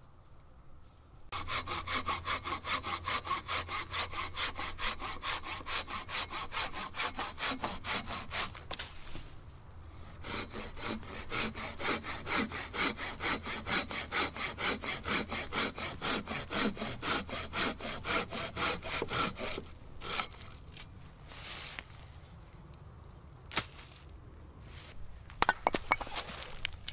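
Hand pruning saw cutting through a dead branch in quick, even strokes, with a short break about nine seconds in. The sawing stops after about twenty seconds, and a few sharp hatchet blows split a piece of wood near the end.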